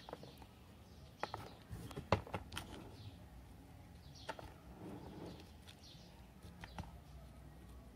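Scattered light clicks and taps of hands working a small plastic plant pot and plucking the small leaves off a Portulacaria afra seedling, with faint bird chirps behind.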